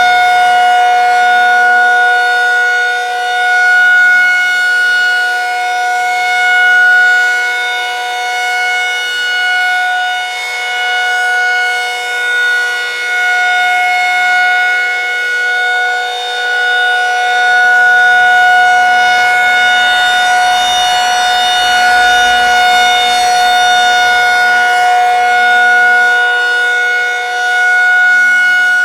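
Federal Signal 2001-SRNB outdoor warning siren sounding the alert signal: a loud, steady single-pitch wail that never changes pitch, its loudness swelling and dipping every few seconds as the rotating siren head turns.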